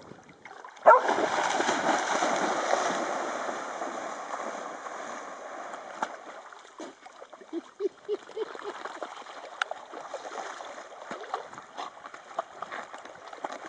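A German Shepherd and a Jack Russell terrier splashing through shallow water. A sudden burst of splashing starts about a second in and fades over several seconds. A few short whimpers from a dog come later.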